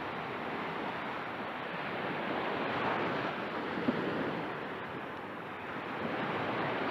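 Small ocean waves breaking and washing up on a sandy shore, a steady surf wash that swells and eases, with one brief tap just before four seconds in.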